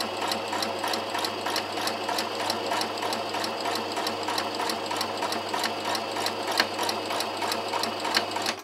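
Sewing machine running steadily, stitching a seam along a marked line through two layers of patchwork fabric with a rapid, even rhythm of needle strokes; it stops abruptly at the end.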